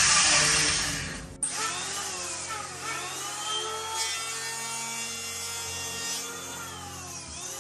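Power tool shaping the newly glued polyurethane foam on a surfboard nose. It is loud at first and drops away about a second in, then runs on more quietly with a whine that dips and rises in pitch.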